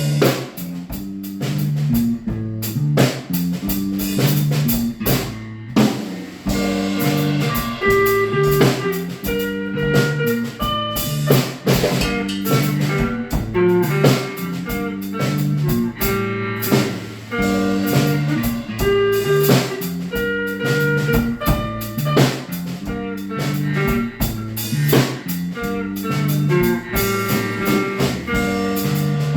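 Instrumental band music: a drum kit keeping a steady beat under guitar, with a moving line of low notes.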